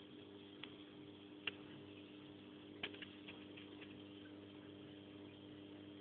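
Faint steady electrical hum, with a few light clicks scattered through the first four seconds, the sharpest about one and a half seconds in.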